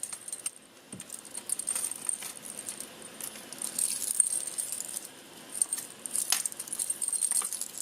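Metal costume-jewelry chains jingling and clinking as two tangled necklaces are tugged and worked apart by hand, a scatter of small irregular chinks.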